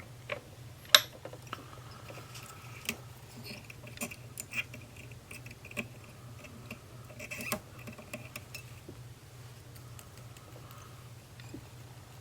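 Small handling noises at a fly-tying vise: scattered light clicks and taps, the sharpest about a second in, and short bursts of light scraping and rustling, over a low steady hum.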